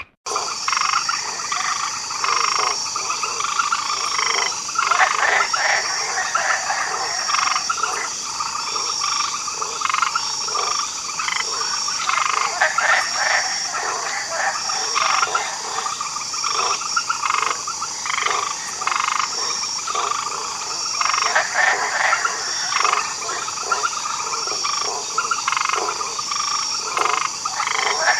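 A chorus of many frogs croaking, their calls overlapping without a break. A short high chirp repeats steadily about every second and a quarter above the croaking.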